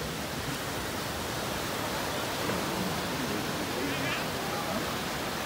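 Steady wash of small waves breaking on a sandy beach, with the faint chatter of many people's voices mixed in.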